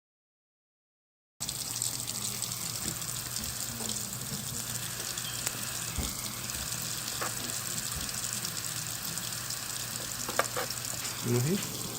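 Small gas soldering torch burning with a steady hiss over a low hum, starting about a second and a half in.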